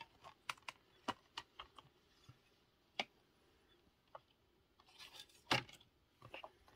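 Plastic Blu-ray case and cardboard slipcover being handled and set down on a laptop lid: a series of sharp clicks and taps, then a short sliding scrape with a louder knock about five and a half seconds in.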